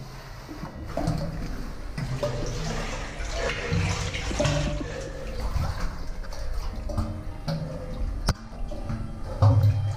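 Water splashing and gurgling around a caver wading chest-deep through a flooded cave passage, with irregular sloshing throughout.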